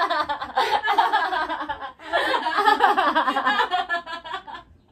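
A young woman laughing hard: two long bouts of rapid, pulsing laughter, the second starting about two seconds in and trailing off near the end.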